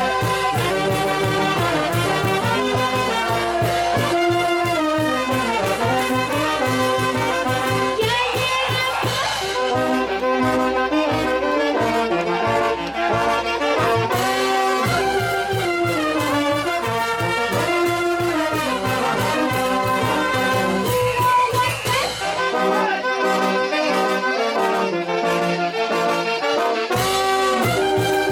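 Brass band music playing a carnival tune, with trumpets and trombones carrying the melody over a steady beat; the bass drops out for a few seconds about three quarters of the way through.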